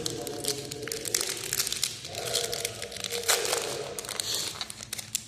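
Foil wrapper of a trading-card pack crinkling in the hands, a run of irregular crackles.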